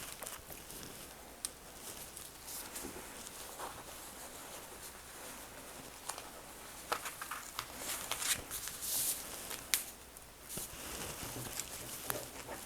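Shears cutting through shirt fabric around a pinned pocket piece: quiet, irregular snips and clicks of the blades mixed with the rustle of cotton being moved.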